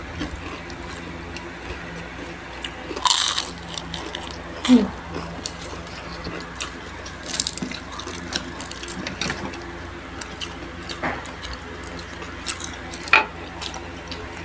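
Close-up eating sounds: scattered bites and crunches of crispy fried food, crispy fried chicken skin and spring rolls, with chewing in between, over a steady low hum.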